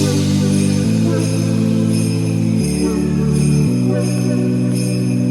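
Festive music with jingle bells shaken on the beat, about twice a second, over sustained chords that change every second or so.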